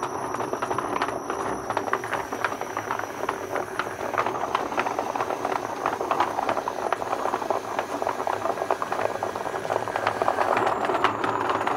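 Motor driving a wheel through a 3D-printed planetary gearbox: a steady rattling whir with dense, fast clicking from the plastic gears. The spinning tyre is being held back by hand, which loads the motor, and it keeps turning.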